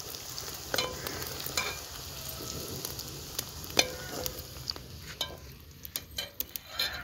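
Sliced onions sizzling as they fry in oil in an aluminium pot, with a metal ladle clinking against the pot now and then as they are stirred. The sizzle grows quieter near the end.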